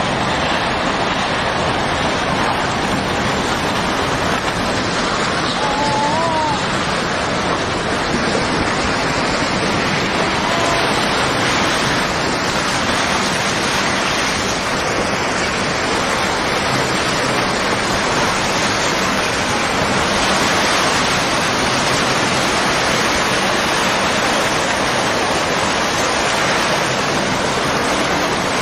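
Floodwater of the 2011 Japan tsunami surging through a town, a steady loud rushing of churning, debris-filled water.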